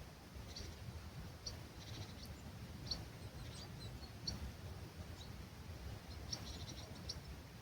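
Dawn birdsong in an olive grove: small birds giving short, high chirps scattered through, some in quick little clusters, over a low steady rumble of breeze.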